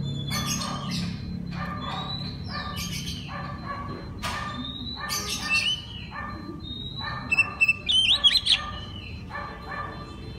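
Oriental magpie-robin (kacer) singing: a run of rasping notes at about one and a half a second, with short whistled glides between them and a loud burst of high whistles about eight seconds in.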